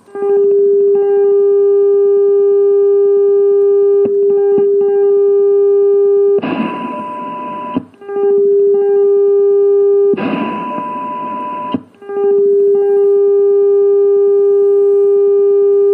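AM receiver audio from an rtl-sdr dongle under Linrad, demodulating two signal-generator test tones on one channel. A loud steady tone from the strong signal twice cuts out for about a second and a half. Each time, a much weaker signal's higher, fainter tone comes up at once through hiss, the sign of a very fast AGC.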